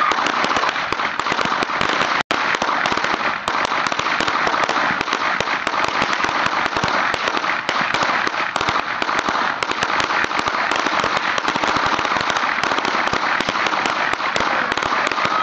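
A 1000-count string of firecrackers going off, a dense, unbroken rattle of rapid bangs. There is a momentary gap about two seconds in.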